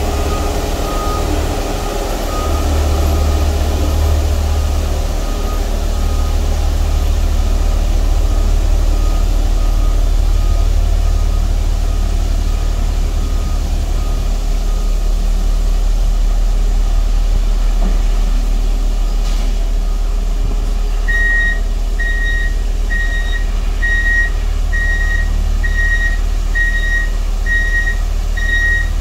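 Water tanker truck's engine running steadily while it sprays water onto gravel, with faint beeping through the first half. About 21 seconds in, its reversing alarm starts beeping about once a second as the truck backs up.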